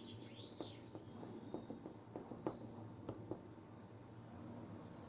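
Faint, irregular light clicks and taps, about nine in three seconds, as small brass castings are handled and turned over.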